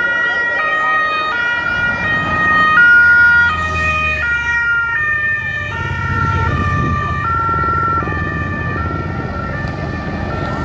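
Electronic siren on a race-convoy vehicle sounding a run of two-note chords that jump to a new pitch about every two-thirds of a second, loudest about three seconds in, over the low running of passing motorcycles.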